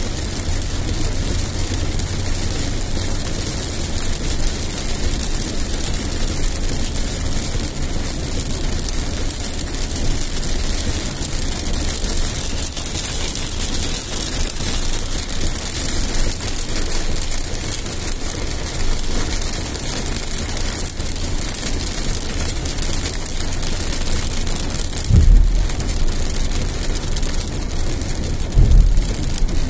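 Inside a car driving through heavy rain: a steady hiss of rain and wet tyres on the road over the low rumble of the car, with two dull thumps near the end.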